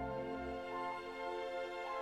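Background music with sustained instrumental notes; the bass notes drop away about half a second in.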